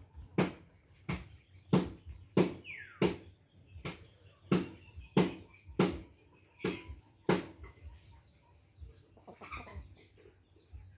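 A chicken pecking coconut food off a banana leaf on stony ground: sharp beak taps about one and a half a second, stopping about seven seconds in. A short falling chirp about three seconds in.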